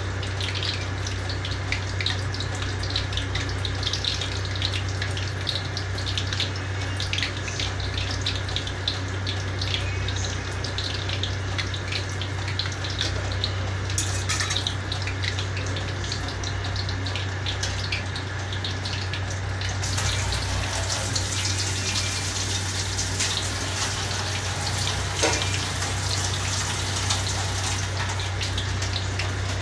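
Vegetable fritters sizzling and crackling as they deep-fry in hot oil in a wok, with a steady low hum underneath. The sizzle turns brighter and hissier about two-thirds of the way in.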